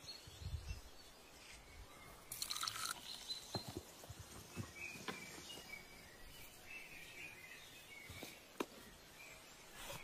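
Faint background noise with a few soft scattered clicks and a brief hiss about two and a half seconds in.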